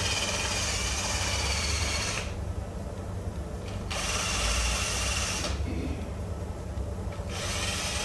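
A power tool running in bursts, cutting out twice for a second or two, over a steady low rumble.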